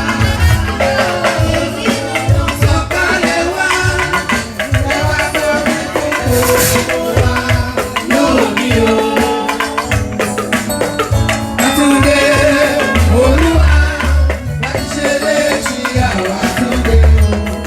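A church processional hymn played and sung live: drums and shaken rattles keep a steady beat under a heavy bass, with voices carrying the melody.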